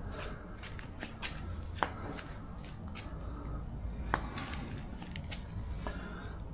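Handling of a cardboard battery box and its packaging: irregular light rustles and clicks, with two sharper ticks about two and four seconds in, over a low steady rumble of distant traffic.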